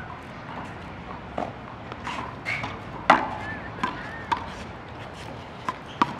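Ball being struck with racquets and smacking off the concrete walls and floor of a racquetball court in a rally: about six sharp smacks, the loudest about three seconds in.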